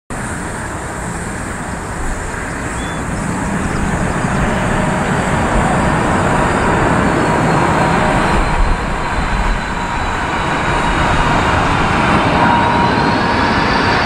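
Four-engined Boeing 747-400 freighter on final approach: a steady jet roar that grows louder, with high engine whine tones sliding down in pitch midway and rising again near the end. Strong wind rumbles on the microphone underneath.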